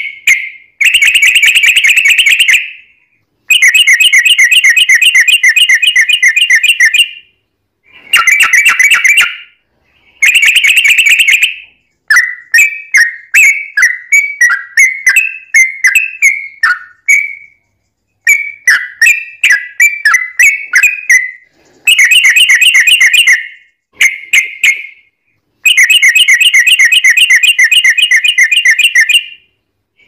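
Trucukan (yellow-vented bulbul) song: loud, fast bubbling trills of one to three and a half seconds each, separated by short pauses. In the middle there is a stretch of choppier, wavering chirps.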